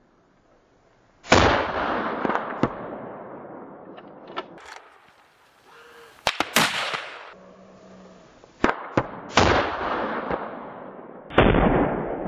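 A series of about six long-range rifle shots fired at a herd of wild boar, each crack trailing off in a long echo. The shots come irregularly, two of them in quick succession about halfway through.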